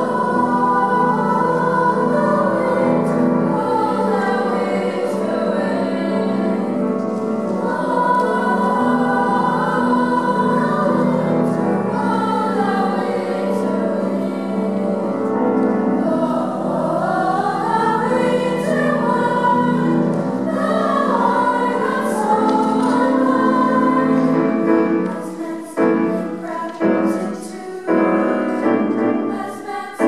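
Youth choir singing a choral piece with piano accompaniment, with flowing sustained lines; near the end the singing breaks into shorter phrases.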